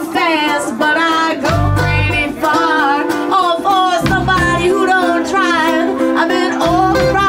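Live band music: a woman sings lead while strumming a ukulele, with electric bass guitar underneath. Deep bass notes come in about a second and a half in, again at about four seconds, and near the end.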